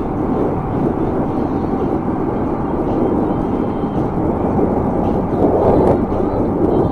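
Steady rushing noise of riding an e-bike at speed: wind buffeting the microphone, mixed with traffic from the busy highway running alongside.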